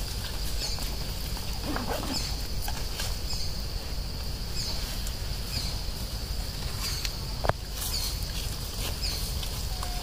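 An insect chirping in a steady rhythm, a short chirp about every two-thirds of a second, over a low rumble, with one sharp click about three-quarters of the way through.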